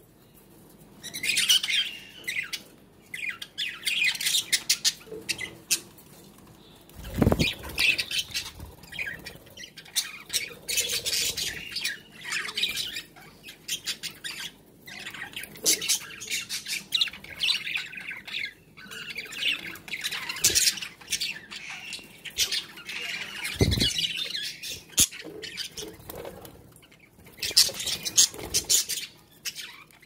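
Budgerigars chattering and squawking in short repeated bursts, with two low thumps, one about seven seconds in and one near 24 seconds.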